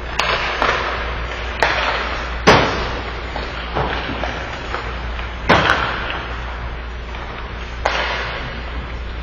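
Ice hockey pucks being struck by sticks and banging into the rink boards and glass: about seven sharp cracks, the loudest about two and a half seconds in and a quick pair near the middle, each echoing in the arena over a steady low hum.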